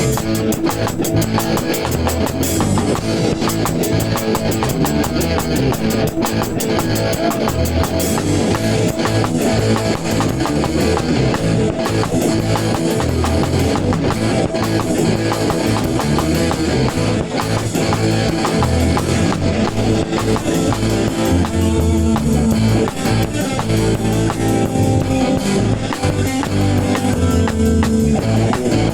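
A band playing ska: a PDP Encore drum kit keeps a fast beat with quick, even cymbal strokes, joined by guitar. About eight seconds in, the drum pattern changes.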